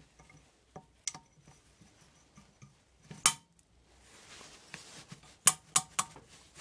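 Small metal parts clinking and ringing briefly as they are handled and set down: a couple of light clicks, a louder clink a little past three seconds, then three sharp clinks in quick succession near the end.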